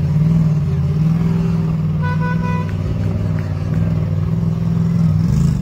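Parade cars' engines running as they drive slowly past, with a few quick car-horn beeps about two seconds in.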